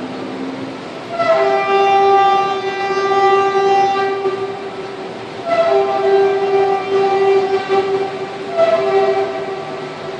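A loud horn sounds three long blasts, each a held chord of several steady pitches, in the manner of a multi-chime train horn.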